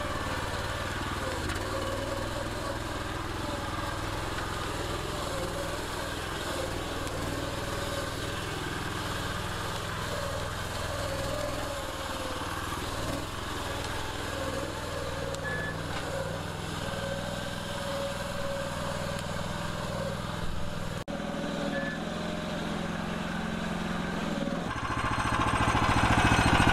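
420cc Predator single-cylinder engine of a homemade mini articulating 4x4 truck running steadily as it drives over rough forest ground. About 25 seconds in it becomes louder and closer.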